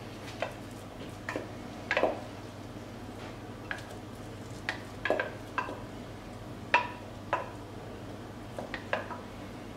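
Spatula tapping and scraping beetroot purée out of a glass blender jug into a pot of risotto: about a dozen irregular clinks and knocks, some ringing briefly, over a low steady hum.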